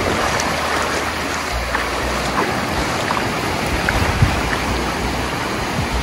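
Ocean surf washing in the shallows: a steady rush of breaking waves and foamy water.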